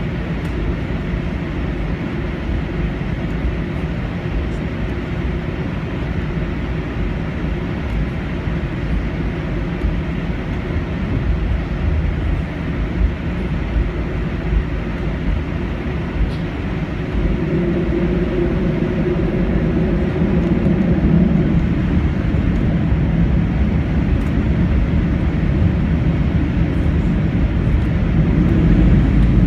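Airbus A320 jet engines running with a steady low rumble, growing somewhat louder from about the middle on.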